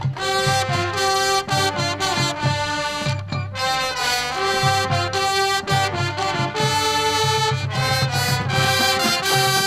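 High school marching band playing its competition show: full brass with a steady drumline, in a Latin, salsa-like style.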